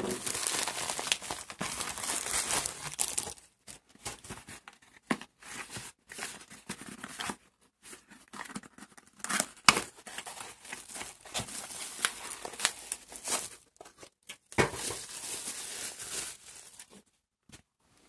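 Packaging being torn open and crumpled by hand, an irregular crinkling and rustling with sharp clicks and short pauses.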